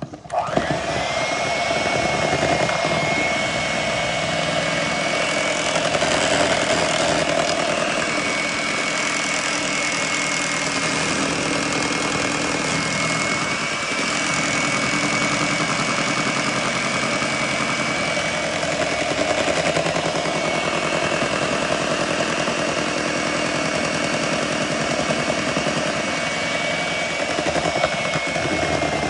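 Electric hand mixer switched on and running steadily, its beaters churning chocolate cake batter in a metal bowl, with a steady high whine over the motor noise.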